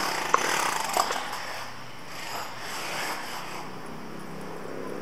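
Outdoor street noise, an uneven hiss of traffic rising and falling, with two sharp clicks in the first second.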